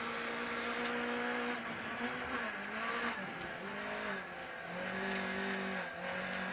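VW Golf GTI rally car's engine running hard, heard from inside the cabin, its pitch dipping and climbing again several times.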